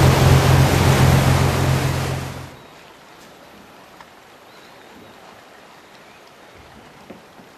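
Moving boat: a steady low engine drone under rushing wind and water noise, which cuts off abruptly about two and a half seconds in, leaving a quiet background with a few faint clicks.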